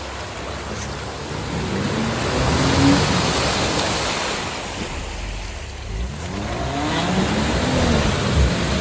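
Jeep Wrangler JK's 3.6-litre V6 revving hard as it pushes through a deep mud hole, with the tyres churning and throwing muddy water. The revs climb a couple of seconds in, ease off in the middle, then rise and fall again near the end.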